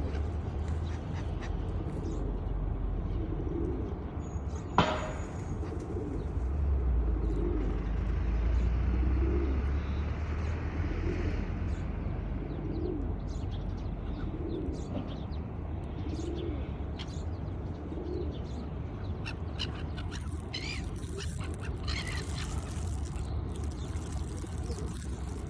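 Pigeons cooing, a low call repeated about once a second, over a steady low rumble; a single sharp click about five seconds in, and higher, quicker bird calls near the end.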